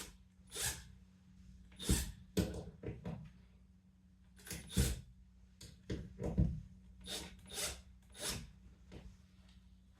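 Irregular short scrapes, rubs and knocks of hand tools and screw hardware being handled during shelf mounting, about ten in all, over a faint steady low hum.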